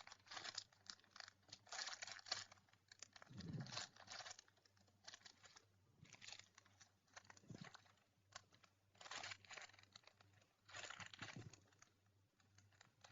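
Faint crinkling and rustling of thin plastic bags as squishy toys in their packaging are handled and squeezed, in irregular short bursts with pauses between.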